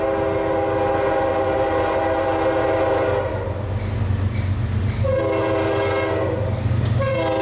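Diesel freight locomotive's multi-note air horn sounding as the train approaches: a long blast ending about three seconds in, a short blast about five seconds in, then another long blast starting near the end. This is the long-short-long close of the standard grade-crossing signal. Under the horn runs a steady low rumble from the locomotive engines.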